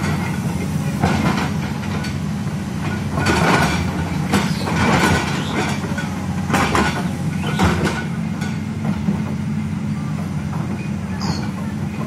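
Liugong 922D crawler excavator's diesel engine running steadily under load while digging, with repeated short bursts of scraping and rattling from the bucket cutting and dumping soil.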